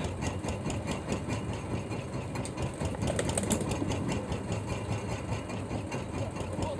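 Fishing boat's engine running steadily at a low, even idle, with a fine regular beat.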